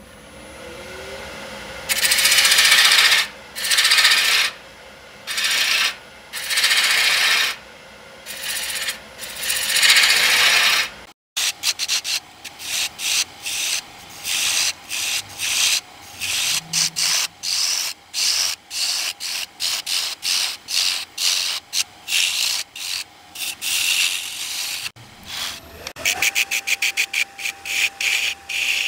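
Abrasive strokes rubbing across wood: a few long strokes about a second each, then, after a brief break, quicker short strokes, two or three a second. A faint steady whine runs under the quicker strokes and rises slightly in pitch near the end.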